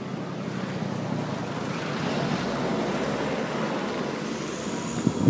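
Steady rushing outdoor noise, swelling a little in the middle, with a few short knocks near the end.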